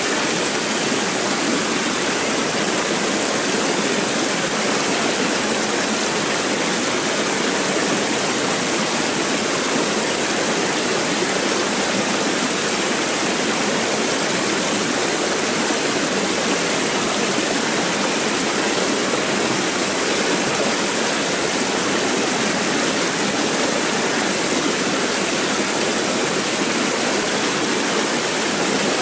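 Fast mountain stream rushing over rocks: a steady, unbroken rush of water.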